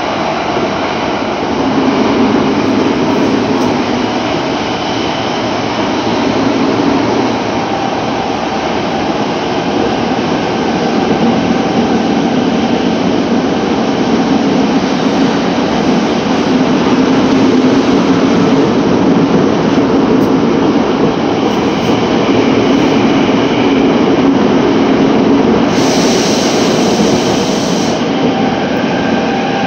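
Tokyo Metro 07 series subway train running between stations, heard from inside the car: a steady rumble of wheels on rail with faint hum, and a brief harsher, hissier patch near the end.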